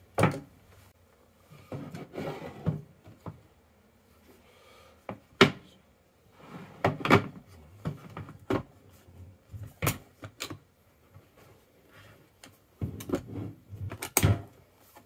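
Hard synthetic parts of a Black Bunker BM8 folding pellet rifle being handled: a series of sharp clicks and knocks as the stock and frame pieces are folded, fitted and set down, with rubbing and scraping between.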